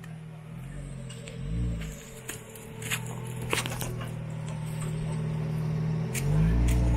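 Jeep Wrangler engine running at low revs while crawling over rocks, the revs rising and falling briefly about a second and a half in and again, louder, near the end. A few sharp knocks sound in between.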